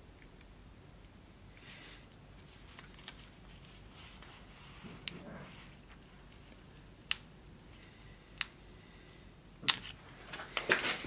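Quiet handling of a paper stencil sheet and tape on a steel sword blade: soft rustling, four sharp clicks a second or two apart, and a burst of crinkling near the end.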